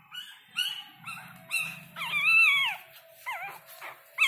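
Newborn puppies crying: a string of short, high squeals, about two a second, with one longer wavering cry about two seconds in, the loudest.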